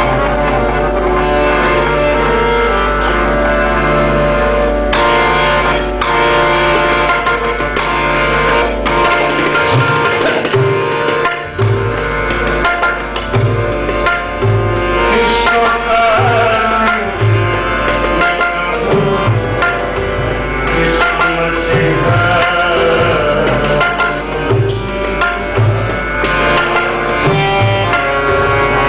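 Harmonium and tabla playing together: sustained harmonium chords over a steady tabla rhythm, with the tabla strokes standing out more clearly from about ten seconds in.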